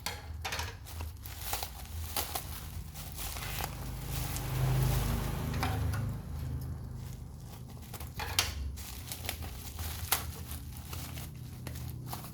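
Packaging of a radiator cap being handled and opened: crinkling and rustling with scattered sharp taps and clicks.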